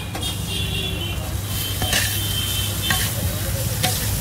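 Metal spatula scraping and clicking against a wide iron kadai as chicken and onions are stirred in masala over a fire, with a few sharp clinks and faint sizzling. A steady low rumble runs underneath.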